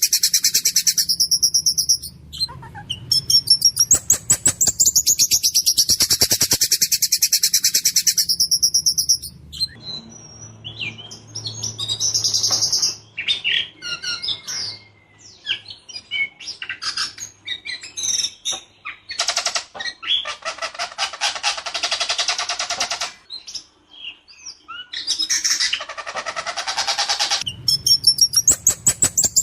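A ciung batu (whistling thrush) singing hard in long, fast rolling trills and rattles, with sharp harsh notes that break the phrases. Its voice is rough yet clear.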